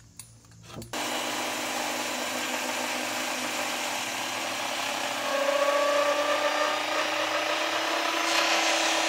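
Corded circular saw cutting through a cedar 6x6 beam. It starts abruptly about a second in and cuts steadily, getting louder with a higher whine about halfway through.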